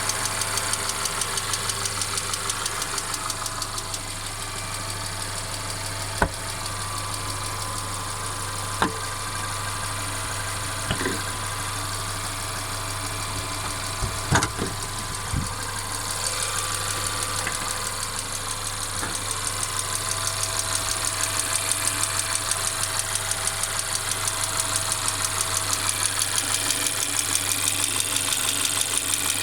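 Mercedes-Benz CLA 250's turbocharged four-cylinder petrol engine running steadily with a continuous rattle, the persistent rattling noise the owner is trying to trace. A few sharp clicks come through, about six, nine and eleven seconds in and twice around fourteen to fifteen seconds.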